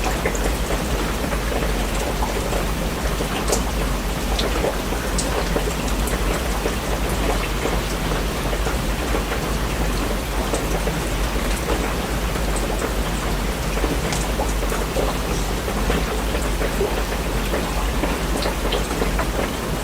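Steady rain falling, with scattered sharp drop ticks over a constant low rumble.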